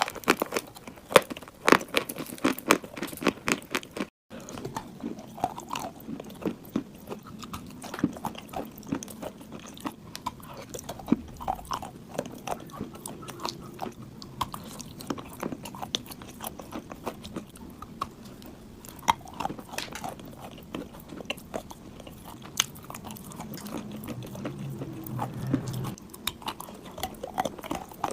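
Biting and chewing on chunks of clay, crunching and crackling. The crunches come thick and sharp for the first few seconds, break off briefly in a short silence, then carry on as slower, scattered crackles while chewing.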